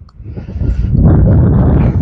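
Wind buffeting the microphone: a loud, rough low rumble that dips near the start and builds back up about half a second in.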